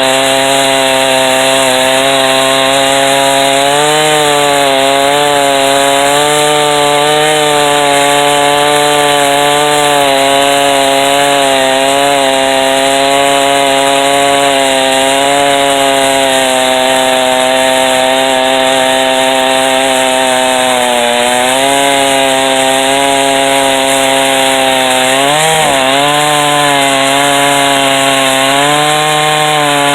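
Chainsaw mill running at full throttle while ripping a white-oak log lengthwise, its engine pitch sagging and recovering slightly under the load of the cut, with a sharper dip and recovery near the end.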